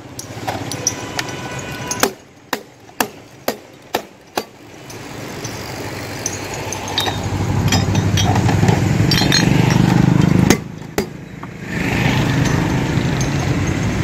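Glass soda bottles clinking sharply as they are handled, about seven clinks in the first four and a half seconds. Then a low engine rumble of road traffic builds up, drops away briefly at about ten and a half seconds and comes back.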